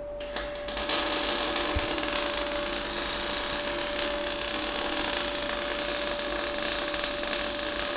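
MIG welding arc on a steel fillet joint, crackling steadily as the bead is run. There are a couple of short ticks as the arc strikes, and it settles into continuous crackle about a second in, over a steady hum.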